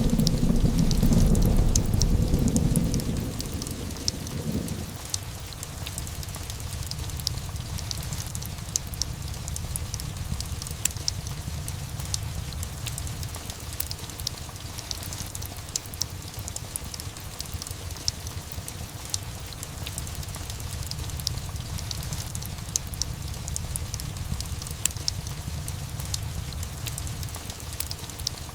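Steady rain with a low roll of thunder that fades out in the first few seconds, and a fireplace crackling with frequent small snaps throughout.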